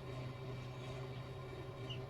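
Quiet background: a steady low hum, with one short, faint high chirp near the end.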